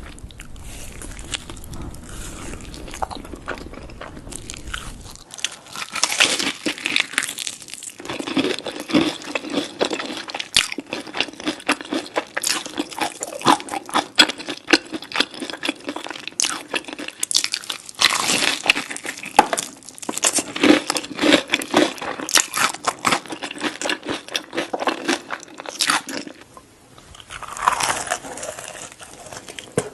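Crunchy food being bitten and chewed close to the microphone: a dense run of crisp crunches after a quieter first few seconds, with brief pauses between mouthfuls.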